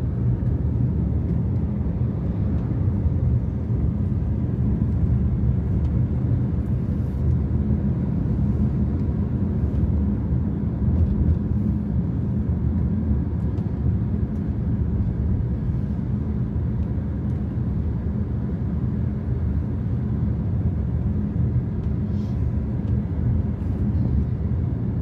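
Car driving at road speed on a highway: a steady low rumble of engine and tyres on the road, heard from inside the cabin.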